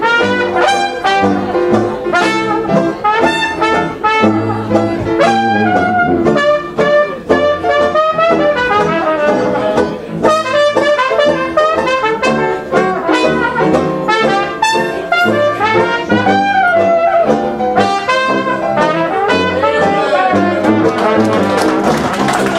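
Traditional jazz band playing live: a trumpet carries a bending melodic lead over steady sousaphone bass notes and banjo chords. Near the end a rising wash of noise joins the band.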